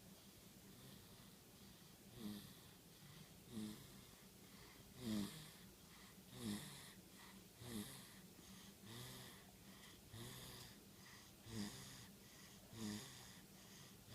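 Snoring: after about two seconds, short wheezy snores repeat roughly every second and a half, each one falling in pitch.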